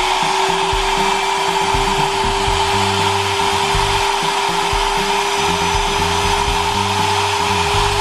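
Nova foldable hair dryer running on its first, cold-air setting (fan only): a steady rush of blowing air with a constant humming tone from the fan motor.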